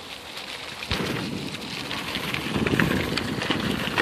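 Bicycle tyres rolling over a trail thick with dry fallen leaves: a steady crackle and rustle of many small clicks, with a knock about a second in.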